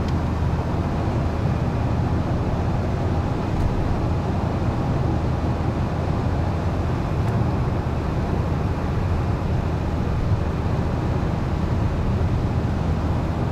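Steady low rumble of a car cruising on a motorway, heard from inside the cabin: tyre and road noise mixed with engine drone, unchanging throughout.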